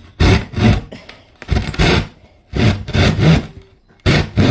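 Hand saw cutting through a wooden tabletop in uneven back-and-forth strokes, each stroke a rasping scrape with short pauses between.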